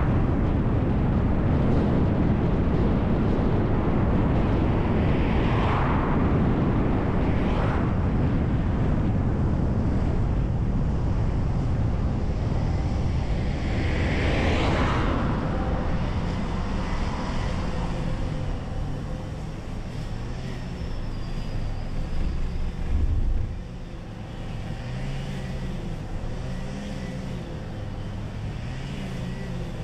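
City bus driving, with steady engine and tyre noise; oncoming cars pass about six, eight and fourteen seconds in. The noise then falls away as the bus slows and stops, and its engine idles with a low, wavering hum through the last ten seconds.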